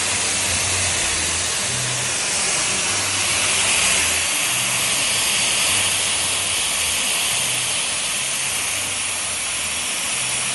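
Gas cutting torch hissing steadily as it cuts through the steel top plate of an excavator's dipper arm, with a low hum coming and going underneath.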